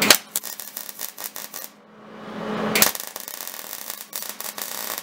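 MIG welding arc crackling as a bead is laid along the seam joining a horseshoe to a sheet-metal base plate. There are two runs, each starting with a sharp crack: a short one in the first second and a half, and a longer one from about three seconds in.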